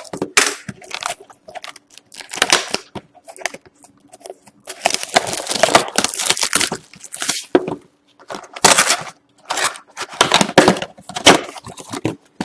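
A sealed box of hockey trading cards being opened by hand: plastic wrapping and cardboard crackling and tearing in a run of short rustles, with a longer stretch of tearing in the middle.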